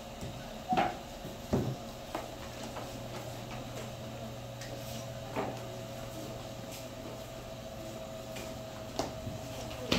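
Quiet classroom with a steady hum, broken by a few sharp knocks and clicks, the loudest two about a second and a second and a half in, as children write with markers on wall-mounted whiteboards.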